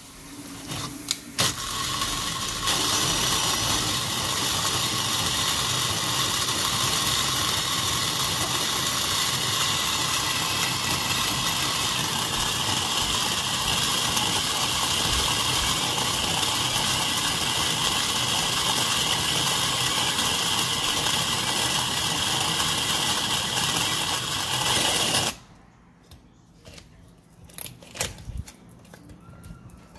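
Makita cordless drill driving a wooden box hand coffee grinder, grinding coffee beans: the drill runs steadily for over twenty seconds, then stops suddenly. A few light clicks follow.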